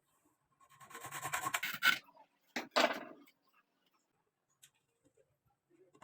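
Rough scraping or rubbing, like a hard surface dragged or rasped: one stroke of about a second, then a shorter second stroke just after.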